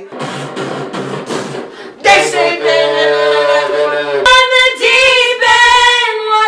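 After a short noisy, breathy stretch, a girl sings long held notes from about two seconds in, moving to a new note about four seconds in.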